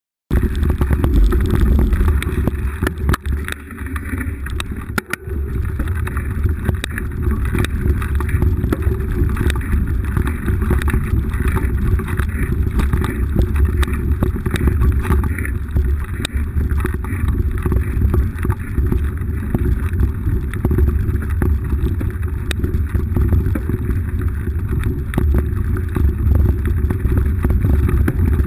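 Wind buffeting a GoPro camera's microphone while a mountain bike rolls fast down a rough dirt single track, with a steady low rumble and frequent small rattles and knocks from the bike over the ground. The sound cuts in abruptly just after the start.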